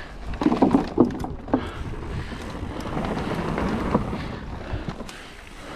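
Trek 29er mountain bike's tyres riding onto and along wooden plank trail features: a quick run of loud knocks and clatter in the first second and a half as the wheels hit the slats, then a steady rolling rumble with wind rushing over the microphone.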